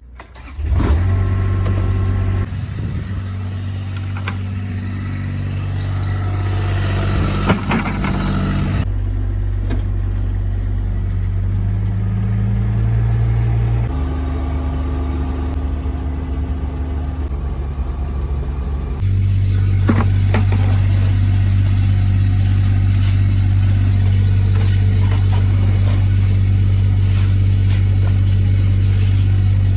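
A vehicle engine running steadily with a low hum while driving. It comes in loudly about half a second in, and its sound shifts abruptly a few times partway through.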